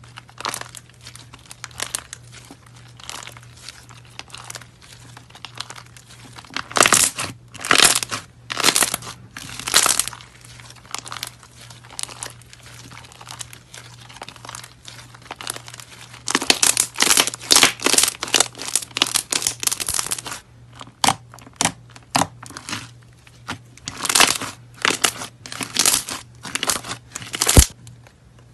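Hands squeezing and stretching thick white slime with small coloured beads in it, making a dense run of wet crackles and pops as air pockets burst. The crackling comes in louder bursts in several stretches, with one sharp pop near the end.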